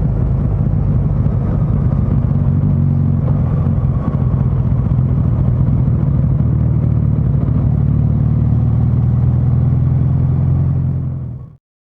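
Suzuki GSX1300R Hayabusa's inline-four engine running at a steady cruise while riding, with wind noise, fading out near the end.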